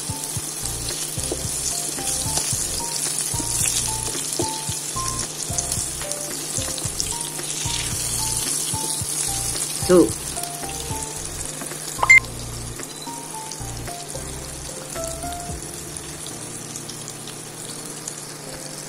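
Burger steak patties of ground pork and beef sizzling as they fry in oil in a nonstick pan. Two short louder sounds break in about ten and twelve seconds in, and the sizzle is quieter toward the end.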